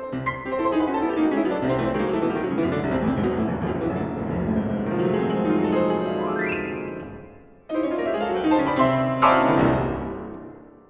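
Steinway grand piano playing fast, relentless running figures, with a rising sweep up the keyboard about six seconds in. After a short break come loud chords and a final crash, struck with the elbow and rolled with the forearm, which rings and dies away.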